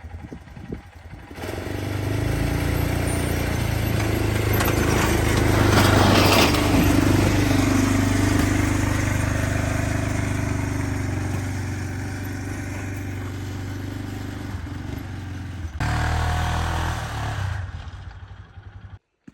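An engine running steadily, building to its loudest about six seconds in and then easing off, before cutting off suddenly near the end.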